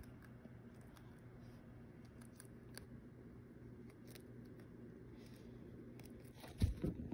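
Hamster nibbling broccoli: faint, crisp little crunching ticks over a low steady hum, with a couple of louder thumps near the end.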